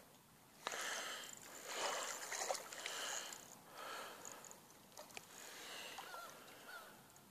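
Shallow water sloshing and swishing in a few soft surges, loudest in the first half.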